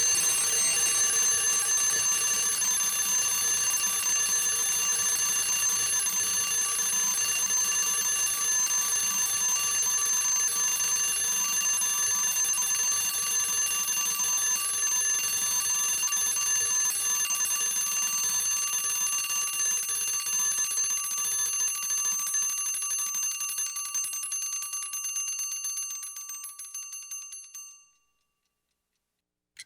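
Alarm clock bell ringing continuously with a rapid, metallic ring. It weakens about 24 seconds in and stops a couple of seconds before the end.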